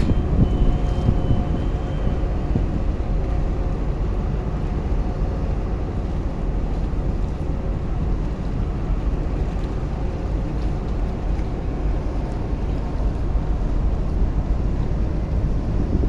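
A boat's engine running steadily, a low rumble with a faint steady hum, with wind buffeting the microphone.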